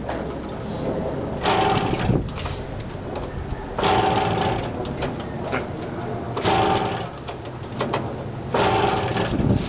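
Freshly reworked two-stroke Tomos moped engine running on its first start, with louder bursts about every two and a half seconds.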